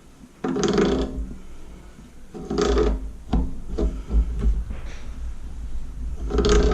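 A wrench tightening the threaded fitting of a water-heater expansion tank onto its rubber washer: a handful of short scraping, rubbing strokes of metal on metal, with a sharp click about three and a half seconds in.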